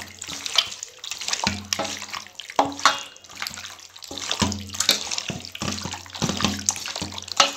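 Wet squelching of raw chicken pieces being kneaded by hand in a thick yogurt-and-spice marinade in a steel bowl, with irregular clicks and taps throughout.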